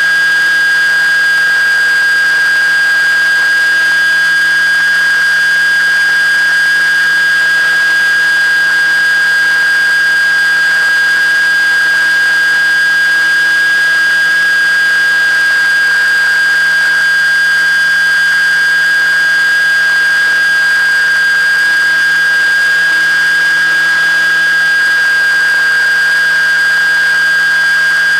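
Electric motor and propeller of an FPV model aircraft, heard from the camera on board: a loud, steady high-pitched whine that holds one pitch, over a constant hiss.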